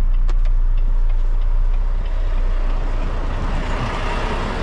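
Semi truck's diesel engine running, a steady low rumble with a sharp click about a third of a second in. From about two seconds in, the rumble gives way to a broader rushing noise that builds toward the end.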